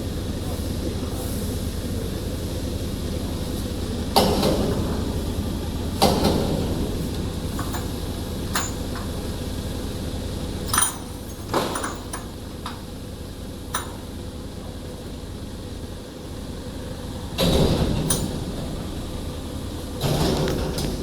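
Irregular metal clanks and knocks from machine parts and tools being handled while the sections of a band saw cutting machine are joined, some ringing briefly, over a steady low hum.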